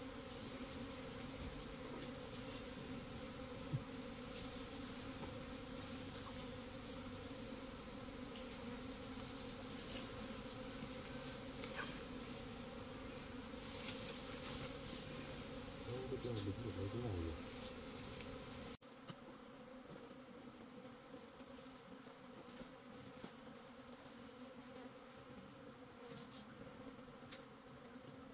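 A swarm of bees buzzing steadily around their disturbed wild nest. The buzzing swells for a moment about sixteen seconds in, then drops suddenly in level a little later and continues more quietly.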